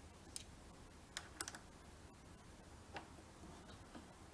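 Faint scattered clicks of a metal Allen key being seated in a screw head and turned by hand: about five light clicks, a few of them bunched a little over a second in.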